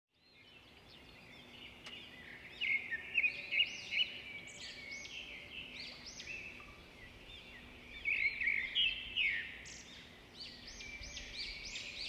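Many small birds chirping and twittering, short high calls overlapping in busy flurries that fade in at the start.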